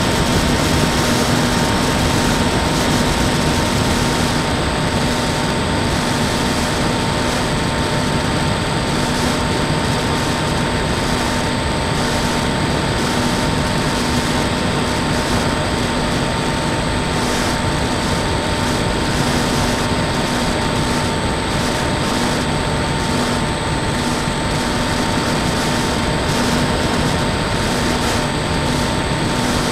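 Small electric RC foam plane's motor and propeller running at a steady cruise, heard through its onboard camera, with steady hum tones under a rushing noise.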